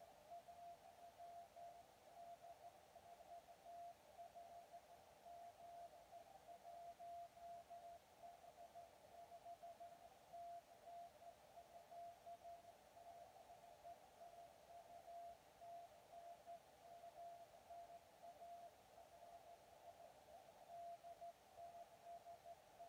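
Faint Morse code (CW) from a weak 23 cm (1296 MHz) amateur station calling CQ, heard as a single mid-pitched tone keyed on and off over a steady band of hiss through the receiver's narrow 500 Hz CW filter.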